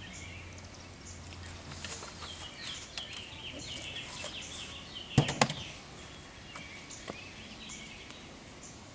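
Songbirds chirping repeatedly, with a quick cluster of three or four sharp knocks about five seconds in.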